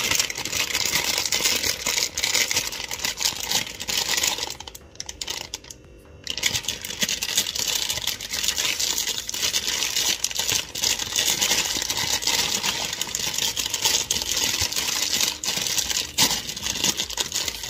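Plastic film packet of Buldak instant ramen crinkling as hands tug and twist at it, struggling to tear it open. The dense crinkling breaks off briefly about five seconds in and then carries on.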